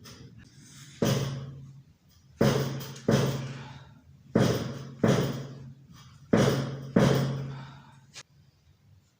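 Seven sudden heavy knocks, each dying away over most of a second: one about a second in, then three pairs in quick succession.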